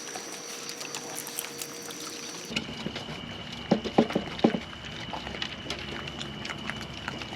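Raccoons feeding and handling treat-filled toys: faint crackling with a quick run of sharp clicks and knocks a little past the middle, and another knock near the end.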